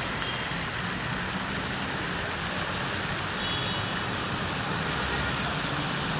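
Steady rushing outdoor noise like distant road traffic, even in level, with no separate events standing out.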